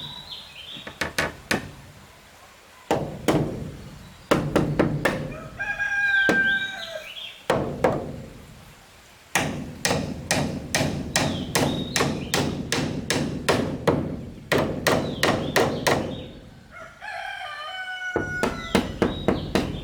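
Runs of sharp knocks, about three a second, from a tool striking wood. A rooster crows three times, near the start, in the middle and near the end.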